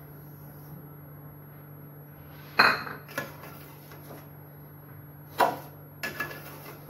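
A steel spoon clinking and scraping against a steel cooking pot as vermicelli in milk is stirred: a few sharp clinks, the loudest about two and a half seconds in, over a steady low hum.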